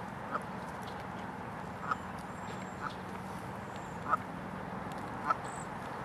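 Canada geese giving five short calls, about a second apart, over a steady background hum. A small bird chirps once, high-pitched, near the end.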